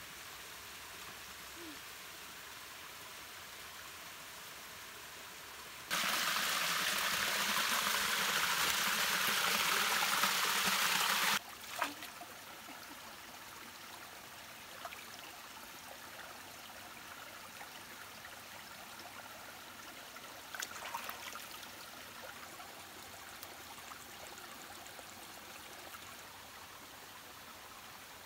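Small forest stream running steadily over rocks. About a fifth of the way in, a much louder rush of water cuts in abruptly and stops just as suddenly some five seconds later, and a few light splashes come about three-quarters through.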